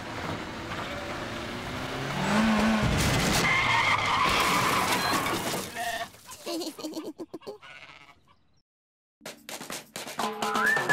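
Cartoon sheep bleating over a loud rush of noise that builds about two seconds in. Then come a string of sharp knocks, a moment of silence and more knocks near the end.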